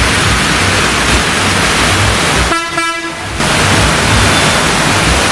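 Heavy rain hissing steadily, with a vehicle horn honking once for just under a second about halfway through.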